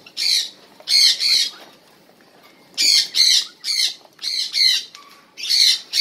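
Cockatiels squawking: repeated short, harsh calls in quick clusters, with a lull of about a second shortly after the start.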